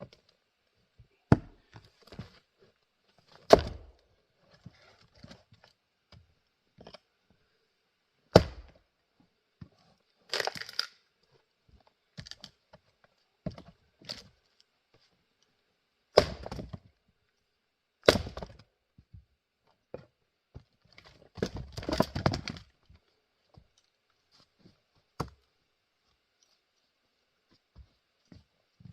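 Axe splitting grand fir rounds: about five sharp, loud strikes of an Adirondack Jersey pattern axe into the wood, spread out with pauses, as the wood cracks apart. There are rougher bursts of clattering in between, around ten seconds in and again near twenty-two seconds.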